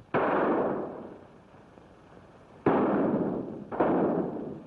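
Three gunshots in a gunfight, each with a long echoing tail. The second and third come about a second apart, after a gap of about two and a half seconds.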